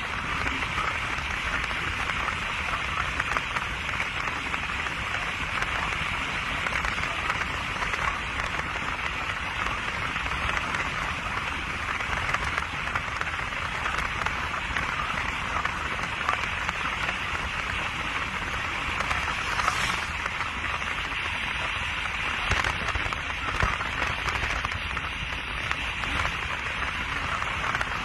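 Steady rushing noise inside a moving car, with faint crackles throughout.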